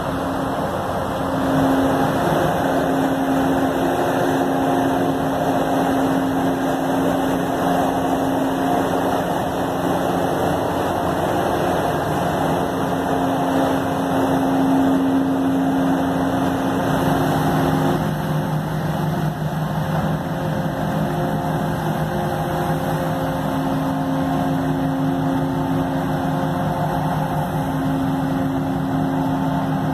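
Tugboat's diesel engines running hard under load as the tug pushes its propeller wash and holds a towline to a tanker: a loud, steady drone with a humming tone. It swells about a second and a half in, and the hum drops lower partway through as the thrust changes.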